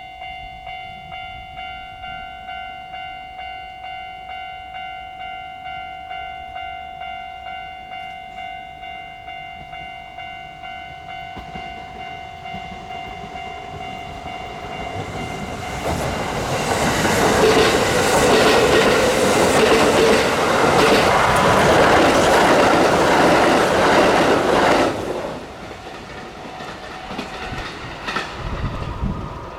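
Japanese level-crossing warning bell ringing in a steady, even rhythm. About fifteen seconds in, a Kintetsu train passes through the crossing with loud wheel-on-rail clatter. The noise cuts off sharply around twenty-five seconds as the last car clears.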